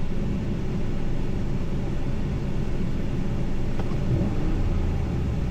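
A Ram 1500 pickup's engine idling with a steady rumble. The engine has an intermittent misfire, which has momentarily stopped.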